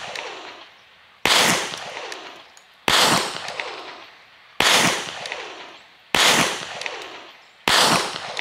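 Kahr CW9 9mm compact pistol firing single shots, five in a row about one and a half seconds apart. Each report trails off over about a second.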